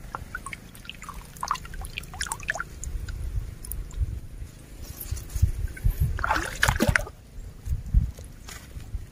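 Shallow muddy water sloshing and splashing in small bursts as a hand net is scooped through it, with a low rumble of handling throughout and a louder rustling scrape about six seconds in as the net comes up onto the bank.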